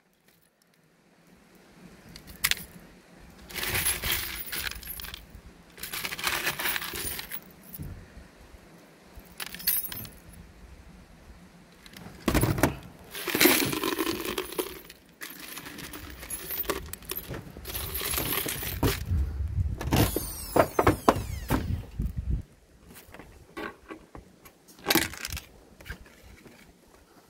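Loose metal screws, bolts and washers jangling in a clear plastic jar as a hand rummages through them, in several separate bouts of rattling.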